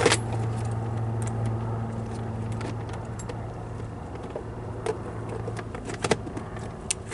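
A steady low hum runs throughout, under scattered light clicks and small rattles as the camper's outside-shower compartment and its plastic hatch are handled and shut.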